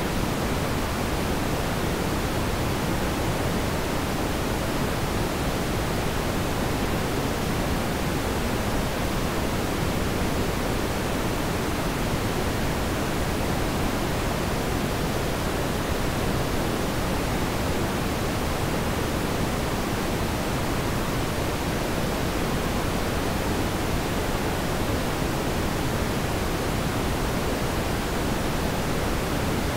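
A steady, even hiss that never changes in level, with no engine note or separate events in it.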